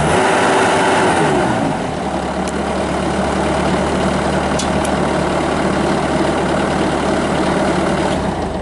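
Bobcat T190 skid steer's diesel engine coming down from higher revs in the first couple of seconds, then idling steadily before it cuts off near the end.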